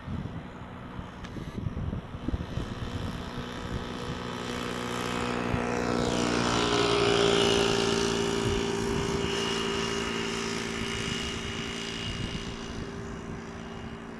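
Airbus A350-900's Rolls-Royce Trent XWB turbofans on final approach, growing louder as the airliner passes close. The engine whine sweeps down in pitch at its loudest, about seven seconds in, then eases off into a steady high whine.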